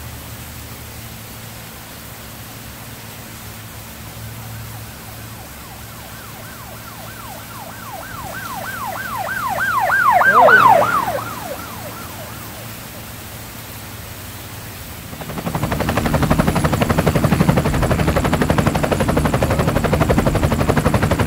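An emergency vehicle siren in a fast yelp, about four sweeps a second, passes by over a steady hiss of rain. It swells to its loudest, then drops in pitch and fades as it goes away. About two-thirds of the way in, a loud steady rumbling noise sets in and continues.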